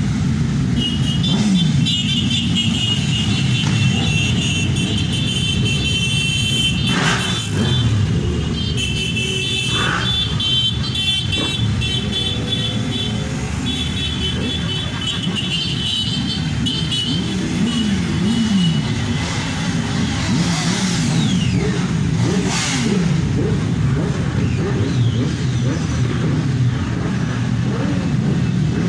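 A long column of motorcycles riding past one after another at low speed, their engines running steadily, each one's pitch rising and falling as it goes by.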